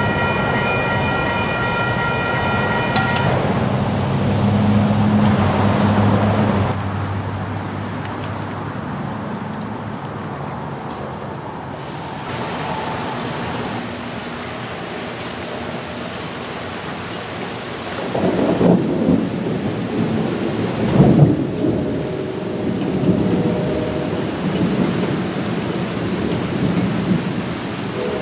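Steady rain with rolling thunder, two loud rumbles about 18 and 21 seconds in. A distant diesel locomotive's multi-chime air horn sounds over the storm about 22 seconds in and again at the very end. At the start a grade-crossing bell rings and stops after about three seconds.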